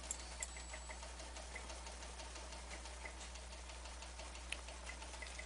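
Faint computer mouse clicks, two close together near the start and another about four and a half seconds in, with light irregular ticking over a steady low hum.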